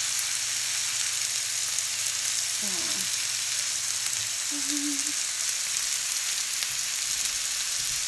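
Hash browns and sausage sizzling steadily on a hot griddle, with the occasional light scrape of a plastic spoon as sausage is spread over them.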